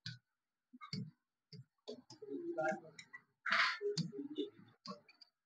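Writing on the glass of an interactive touchscreen board: irregular light clicks and taps, with a few short scratchy strokes.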